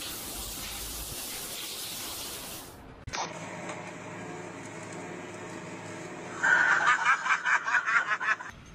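Water hissing as it sprays out of a squat toilet, cutting off about three seconds in. Then a steady low hum with a tractor in view, and a person laughing in quick bursts for about two seconds near the end.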